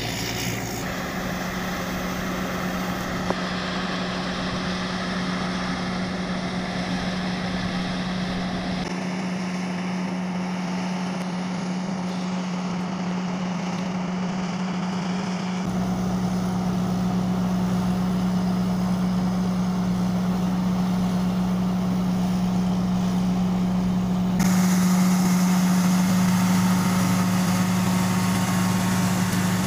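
Rice combine harvester's engine running steadily under load as it cuts rice, a constant low hum. It gets louder a few seconds before the end.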